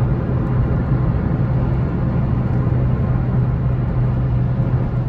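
Steady road and engine noise inside a moving car's cabin while it cruises on a highway, with a constant low hum and no change in speed or revs.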